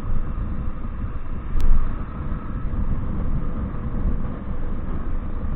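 Motorcycle engine running under way with wind noise, a steady low rumble, with one brief sharp click about one and a half seconds in.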